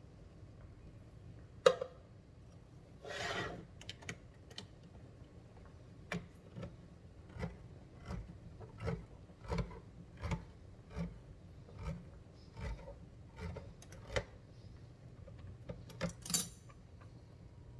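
A spoon stirring a cream-soup and milk mixture in a pot, knocking and scraping against the pot. Through the middle it knocks steadily about every three-quarters of a second, with a sharper clack about two seconds in and longer scrapes around three seconds in and near the end.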